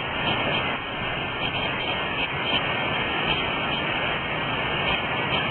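Steady rushing of a creek, with a few faint ticks over it.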